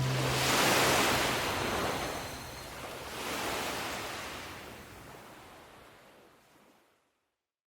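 Sea waves washing in, two soft swells of surf hiss that fade out to silence about seven seconds in.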